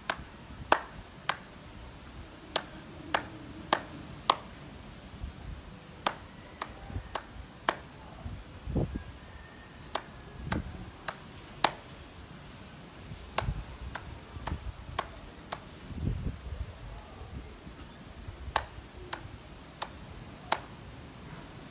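Sharp clicks and slaps of hands striking together, about two dozen at irregular spacing, with a few low bumps between them.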